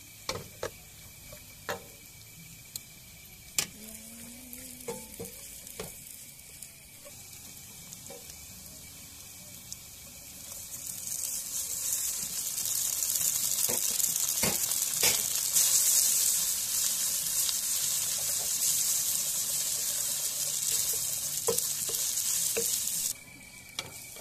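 Sausage slices and spaghetti frying in a pan over a gas stove flame, stirred with a wooden spatula that clicks against the pan. The sizzling is fainter at first, grows loud and steady about ten seconds in while the spaghetti is tossed, then cuts off suddenly near the end.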